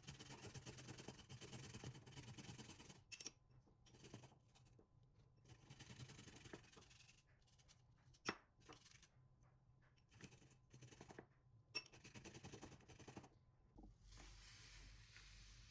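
Faint kitchen food-preparation sounds: several short stretches of crisp cutting or scraping, broken by three sharp clicks.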